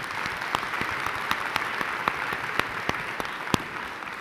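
Audience of several hundred applauding, a dense patter of many hands clapping that holds steady and starts to die away near the end.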